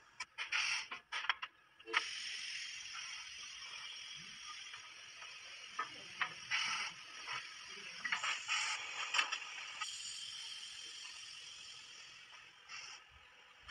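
Metal clinks and ratchet-like clicks of tools and fittings on a tyre-retreading rim and mould. About two seconds in, a steady hiss sets in and slowly fades, with scattered clicks over it.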